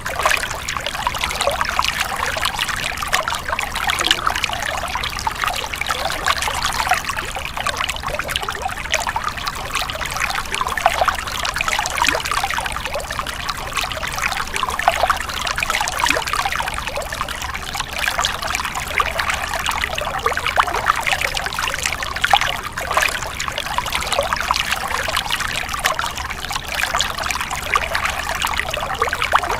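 Stream water splashing and trickling over rocks, a steady busy babble with many small splashes.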